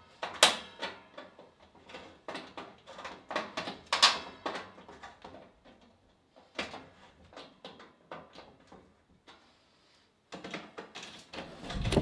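A string of irregular knocks and clacks, several a second, some ringing briefly, with a short pause near the end.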